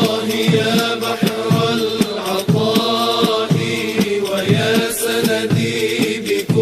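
Arabic devotional nasheed music: held, wordless vocal tones over a steady percussion beat.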